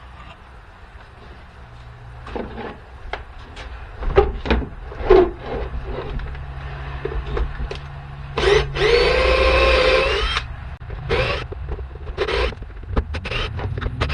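Knocks and clicks of tools and a plastic casing being handled, with a cordless drill/driver running once for about two seconds just past the middle, its motor pitch creeping slightly upward.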